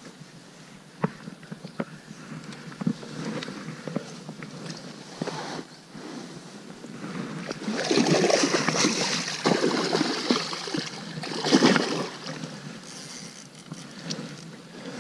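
Hooked sea trout splashing and thrashing at the water's surface near the bank, loudest about eight and again about eleven and a half seconds in. A few sharp clicks come in the first few seconds.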